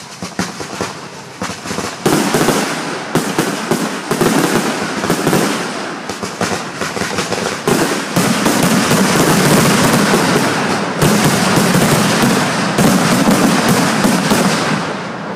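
Aerial fireworks exploding in a rapid barrage: dense cracks and bangs that thicken about two seconds in and become an almost continuous crackle from about eight seconds on, dying down near the end.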